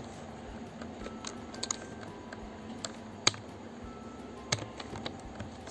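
Computer keyboard being typed on: single key clicks at irregular intervals, a few seconds apart at most, over a faint steady hiss.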